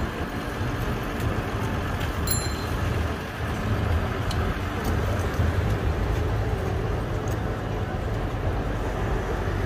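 Flatbed tow truck's engine running with a steady low rumble as its winch draws a car up the tilted bed, over city street noise.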